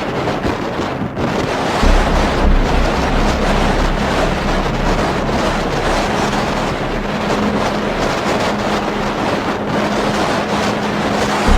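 Strong wind rushing and buffeting the microphone, with a heavy low rumble that comes in about two seconds in.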